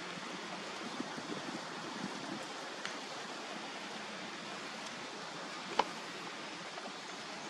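Steady outdoor background hiss, like wind or distant ambient noise, with a few soft clicks and one sharp click near the end.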